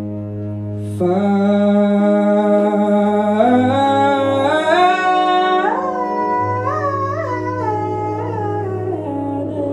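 Slow live jazz introduction: a bowed double bass holds a low drone, and about a second in a wordless melody line enters, gliding up in steps and then wavering.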